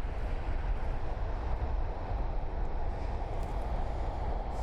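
Steady rumble of distant jet airliner engines, with no change in level.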